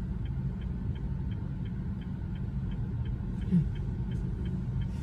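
A car's turn-signal indicator ticking steadily, about three ticks a second, over the low rumble of the car cabin while driving. A brief low squeak rises a little past halfway.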